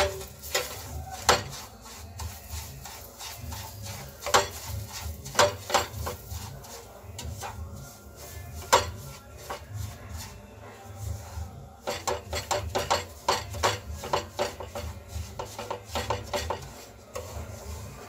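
Wooden spatula stirring and scraping semolina in a nonstick frying pan, irregular knocks and scrapes against the pan that come thicker and faster about twelve seconds in. The semolina is being roasted in ghee and stirred constantly to keep it from burning or forming lumps.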